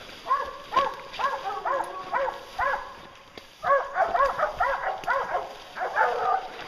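A pack of English bear hounds baying on a bear, calls coming about two a second. After a short break about three seconds in, more dogs join and their calls overlap.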